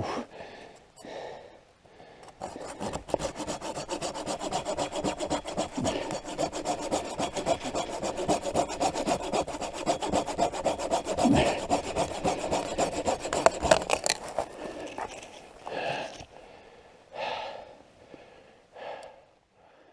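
Hand saw cutting through dead wood for firewood, a long run of quick, even back-and-forth strokes. The sawing stops about 14 seconds in, followed by a few separate short rustling or crunching noises.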